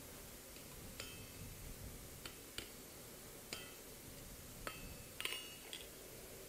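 Light metallic clinks of a thin round mild steel bar being handled against an anvil: a few scattered taps, each with a short ring, and a small cluster of them about five seconds in.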